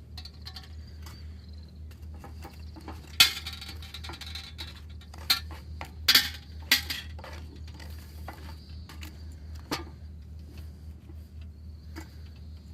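A handful of sharp metallic clinks and knocks from metal camp gear being handled, the loudest about three seconds in and a cluster between five and seven seconds.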